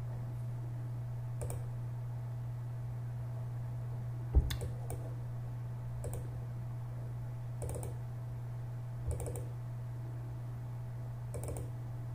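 Computer mouse clicks, scattered every second or two as folders are opened in a file dialog, the loudest about four and a half seconds in, over a steady low hum.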